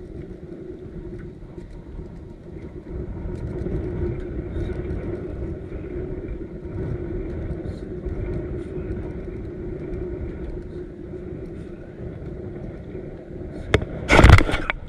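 Steady wind and water noise around a kayak. Near the end comes a sharp knock, then a brief loud splashing burst as a hooked crappie thrashes at the surface.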